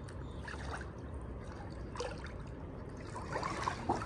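Pool water lapping and trickling as a swimmer pushes off the wall and glides face down, with a few faint small splashes.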